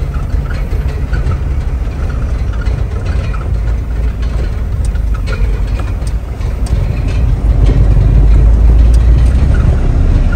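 Vehicle on the move: a steady low rumble of engine and road noise, growing louder near the end.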